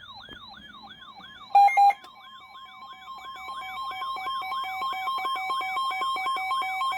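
An electronic siren sweeps rapidly up and down, about three times a second. About a second and a half in there is a short, loud alert beep. A steady alert tone then starts together with a rapidly pulsing tone, and both grow louder; these are emergency-alert warning tones.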